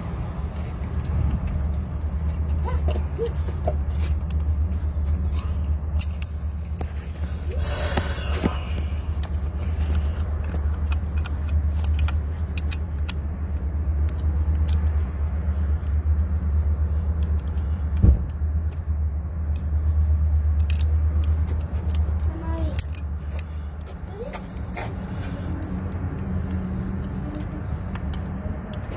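Small metal clinks and taps of tools and bolts being handled, scattered irregularly over a steady low rumble that eases off about three-quarters of the way through. There is a short rustling burst early on and a single sharp knock in the middle.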